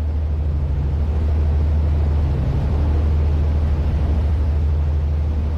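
Steady low drone of the Pershing GTX116's three engines driving water jets, heard on board, swelling slightly in the first second or so as the engines are brought up progressively toward 1900 RPM, over a rush of water and air.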